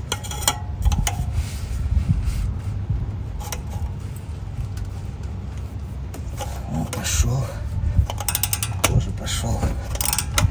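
Ratchet wrench clicking in short runs as a brake caliper mounting bolt is turned out with a socket on an extension.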